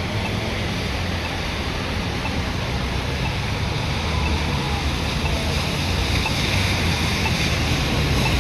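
Steady hiss of rain and tyres on a wet road over a low rumble, with a faint fire engine siren wailing far off, its pitch falling about four seconds in.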